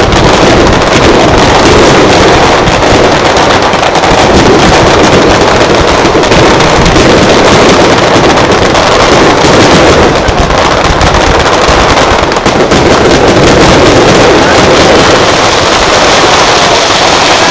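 Aerial firework shells bursting in a dense, continuous barrage, one after another with no gap between them, loud enough to push the recording close to full scale.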